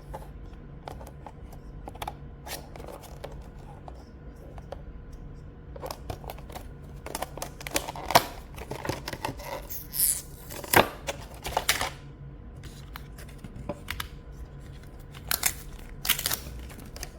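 Packaging being handled and opened: irregular rustling, tearing and small sharp clicks, loudest in a cluster through the middle and again near the end.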